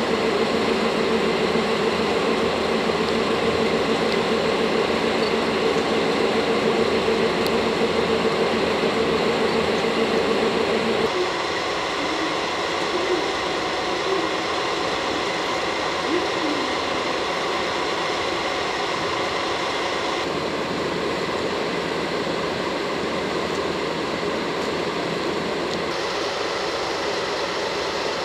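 Double-headed DD51 diesel-hydraulic locomotives running at low speed, a steady engine drone. A strong humming tone in it cuts off about eleven seconds in, leaving a quieter, even engine sound.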